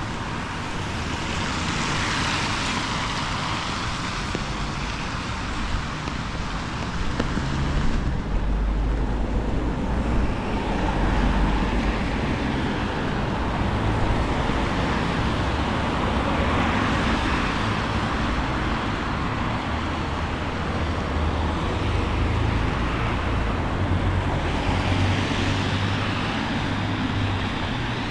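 Road traffic on wet town streets: several vehicles swell past one after another over a steady low rumble.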